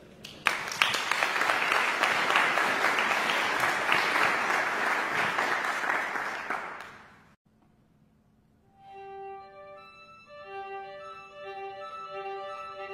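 Audience applauding for about seven seconds, cut off abruptly. After a brief silence, violin and cello begin playing, mostly long held notes.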